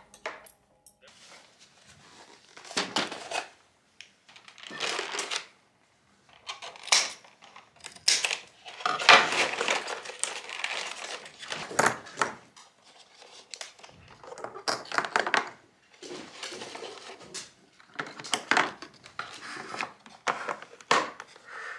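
Plastic carrier bag rustling and clear plastic egg cartons crinkling and clicking as groceries are handled, in repeated bursts.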